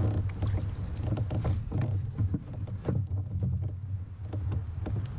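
A hooked bass being reeled in and landed beside a fishing kayak: irregular clicks, knocks and splashy rattles over a steady low rumble.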